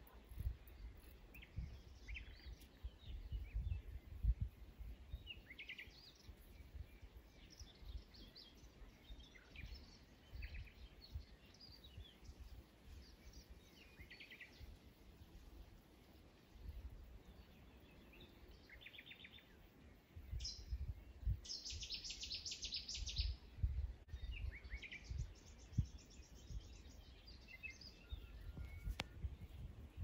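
Wild birds singing and calling, faint, with short chirps throughout and a fast trill about two-thirds of the way through. An uneven low rumble runs underneath on the microphone.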